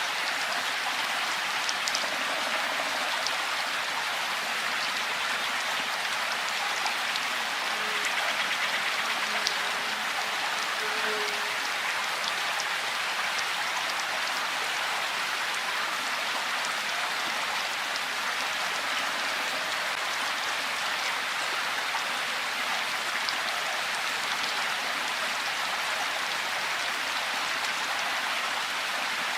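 Steady rainfall: an even, dense hiss of many drops, with scattered single drops ticking through it.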